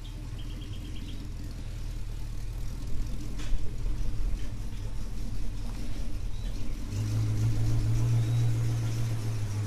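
An old station wagon's engine running at low speed as the car drives slowly out of the shed and past, a steady low rumble that swells louder about seven seconds in as it comes close.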